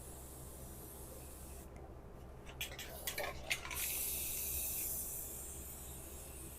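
Aerosol spray paint can: a few clicks and rattles about two and a half seconds in, then a high spray hiss starting near four seconds in that fades over the next two seconds.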